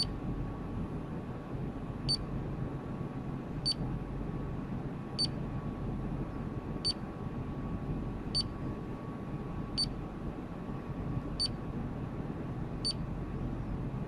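Alarm-system keypad giving a short high beep at each press of its scroll key, about nine beeps evenly spaced roughly every second and a half. A steady low hum runs underneath.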